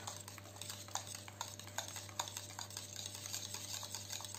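Wire whisk stirring thick pastry cream in a stainless steel bowl, its wires ticking and scraping against the metal in quick, irregular strokes as butter and gelatine are worked into the cream.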